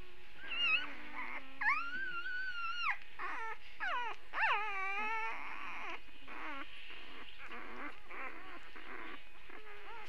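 Young Great Dane puppies whimpering and squealing: a run of high, wavering cries, the longest held for over a second, followed by fainter, shorter repeated whimpers in the second half.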